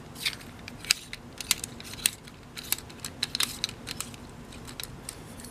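Telescoping fishing rod being extended by hand, with a series of light, irregular clicks and rattles as its thin sections are pulled out.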